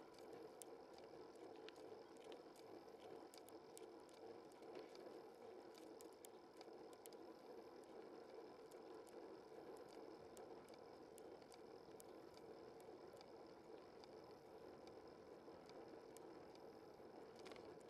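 Faint, steady rolling noise of a bicycle being ridden on a paved road, with scattered light ticks.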